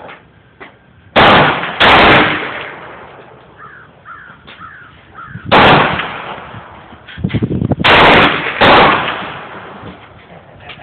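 Five 9mm pistol shots, each trailing off in echo: two in quick succession about a second in, one midway, then two more close together near the end.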